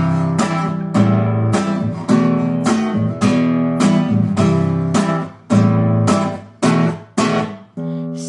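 Acoustic guitar strumming chords in a steady rhythm, about two strokes a second, as an instrumental passage of a song. In the last few seconds the chords are cut short between strokes.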